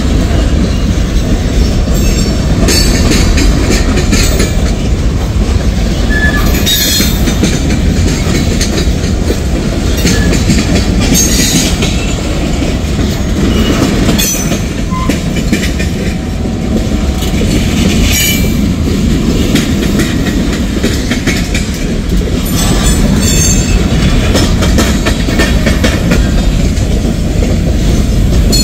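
Freight cars of a CSX manifest train rolling past close by: a steady heavy rumble of steel wheels on rail with clickety-clack over the joints, and brief high-pitched wheel squeals now and then.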